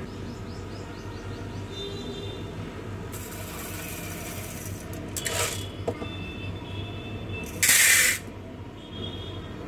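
Dry chana dal (split chickpeas) poured from a cup into an aluminium pressure cooker pot, the grains rattling against the metal in a few pours about three, five and eight seconds in, the last the loudest, over a steady low hum.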